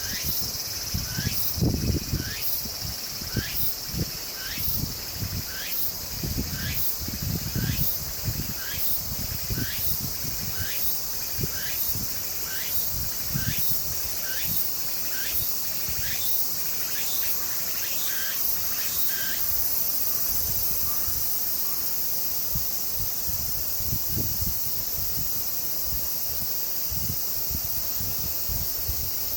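A steady, high-pitched chorus of insects, likely crickets, with a short rising chirp repeated about once a second that stops about two-thirds of the way through. Low rumbles, likely wind on the microphone, come and go in the first half.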